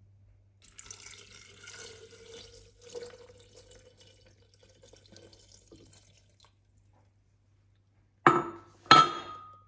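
Water pouring from a jug into a glass kettle over fruit and herbs for a few seconds. Near the end come two sharp knocks, the loudest sounds, the second with a short ring.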